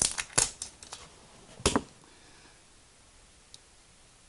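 Plastic cap of a Nuclear Fire Buldak hot-sauce squeeze bottle clicking open with a few sharp clicks, then one short squirt of sauce as the bottle is squeezed, about a second and a half in.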